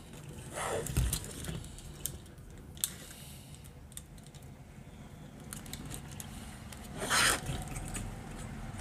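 Hands handling a plastic panel of PC cooling fans and their wiring: light clicks and plastic rattles, with two short rasps, one about a second in and a louder one near the end, as small nylon cable ties are pulled tight.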